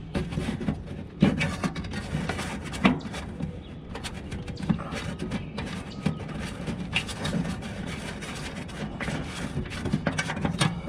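Hands working at the wiring of an outdoor air-conditioner unit, close to the microphone: irregular rubbing, rustling and small clicks and knocks of wires and fittings being handled.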